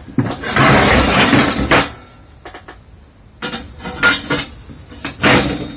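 Welded steel flat-bar bracket being fitted onto the side of a metal parrot cage: a long scraping rattle of metal against metal for about a second and a half, then several sharp clinks and knocks as it is set in place.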